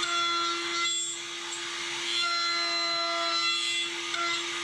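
Table-mounted router running at full speed with a steady high hum as a wooden board is fed along the fence and cut. A higher whine comes and goes while the bit is in the wood.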